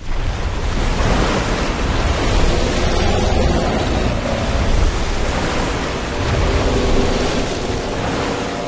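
Loud, steady rushing noise with a deep rumble, like storm wind, from a film soundtrack; it starts suddenly. Faint sustained tones join in the last few seconds.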